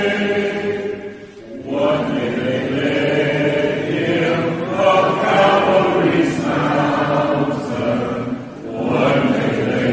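A congregation singing a hymn a cappella in slow, long-held notes, with two short breaks between phrases, one early and one near the end.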